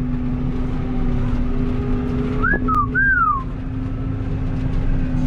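Steady drone of a Puma tractor's engine heard inside the cab. About halfway through comes a person's whistle: two short notes, each rising and then falling.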